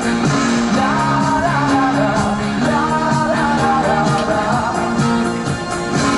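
Rock music with a sung vocal line over guitar and a steady beat.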